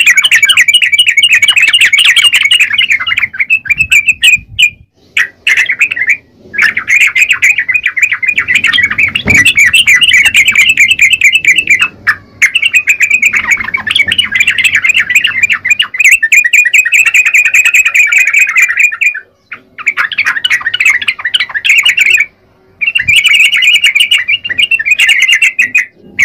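Yellow-vented bulbul (trucukan) singing hard: a loud, rapid chattering song in long runs of several seconds, broken by a few short pauses.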